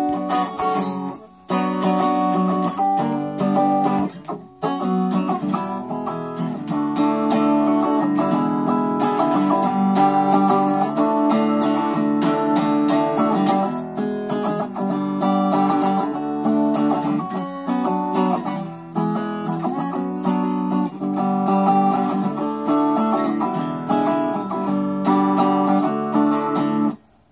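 Guitar being strummed and picked, chords ringing on with only short breaks: one about a second in and one near four and a half seconds. The playing stops just before the end.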